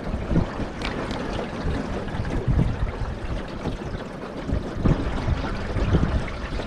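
Water rushing and splashing against the hull of a small aluminium jon boat on the move, with wind buffeting the microphone in irregular low gusts.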